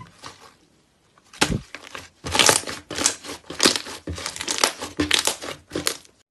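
Thick orange slime pressed and squeezed by hand, trapped air crackling and popping in quick runs. One louder pop with a low thud comes about a second and a half in.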